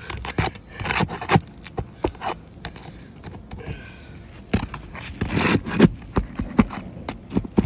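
Steel roof snake tool scraping and knocking against shingles and roofing nails as it is worked under a shingle to pull the nails. The sound comes in two bouts of sharp scrapes and clicks, one at the start and one from the middle to near the end.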